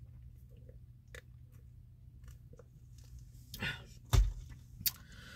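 Faint chewing and sipping noises from someone eating fast food in a car. About three and a half seconds in there is a short rustle, then a dull thump and a sharp click as the food packaging is handled.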